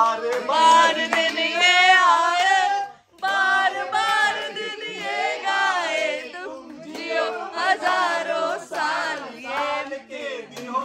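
Several voices singing together, with a brief break about three seconds in.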